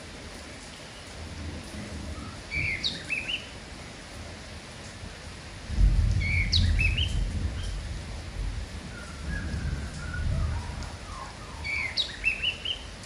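A kapas tembak bulbul sings the same short phrase three times, a sharp high note followed by quick rising chirps, over a steady hiss of rain, with softer lower notes in between. A low rumble swells from about six seconds in and fades by about eleven; it is the loudest sound.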